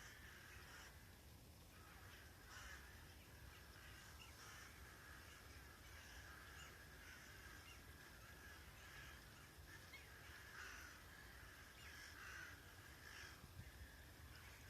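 Faint, overlapping short calls of Daurian jackdaws among a large rook flock, coming irregularly one after another.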